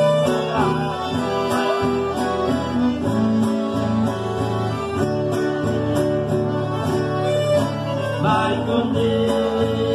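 Live acoustic guitar and piano accordion playing a song together, with a man singing into a microphone.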